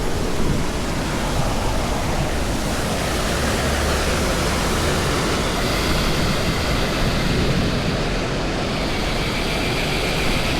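Steady rush of a waterfall pouring over a small homemade hydro turbine. About halfway through, a faint high whine comes in and grows stronger toward the end.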